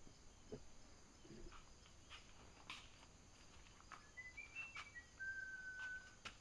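Quiet room tone with scattered faint clicks and knocks. Near the end comes a faint bird call: a few short chirps stepping up and down, then one held whistled note.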